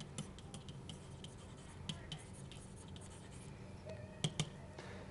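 Stylus tapping and scratching on a pen tablet while handwriting is written out, in quick short strokes, with two louder taps about four seconds in, over a faint steady hum.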